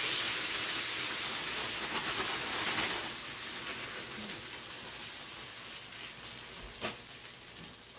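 Food sizzling in a hot pan: a steady hiss that slowly fades, with a single click about seven seconds in.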